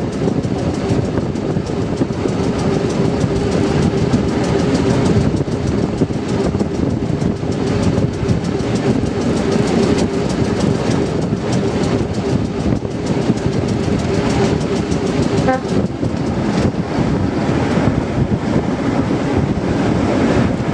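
Class 207 diesel-electric multiple unit ('Thumper') running along the line, with its diesel engine running and wheels clattering over the rails. A steady whine carries through most of it and stops about three-quarters of the way in.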